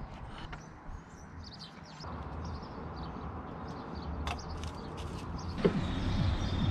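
Birds chirping over a faint low hum. Near the end, gear oil glugs from a bottle into a funnel in a quick run of short gulps.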